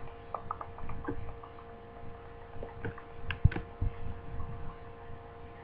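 Handling noise: a scatter of light clicks and taps, then two dull thumps about three and a half seconds in, over a steady electrical hum.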